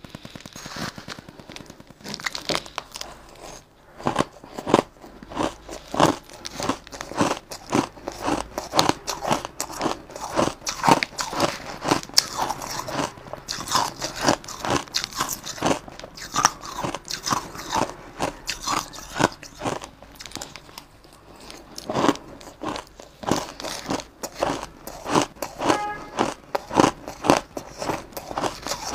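Close-miked crunching of crushed ice being chewed: a dense run of sharp, irregular crunches, with brief pauses about four seconds in and about two-thirds of the way through.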